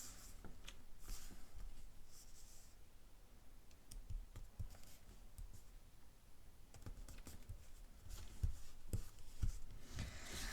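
Quiet handling of paper and cardstock on a craft table: faint rubbing and sliding with scattered light clicks, and a few dull taps and knocks near the end.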